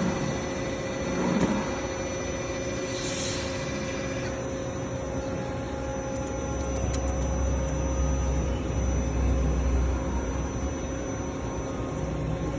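CNC machine running with a steady hum and whine, a short hiss about three seconds in, and a deeper low rumble from about six to ten seconds in.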